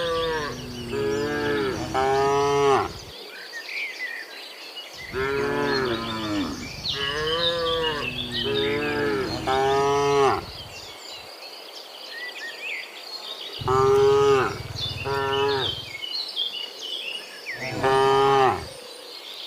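Several cows mooing from a herd on the move, the calls overlapping in clusters with short pauses between them, each moo bending up and then down in pitch.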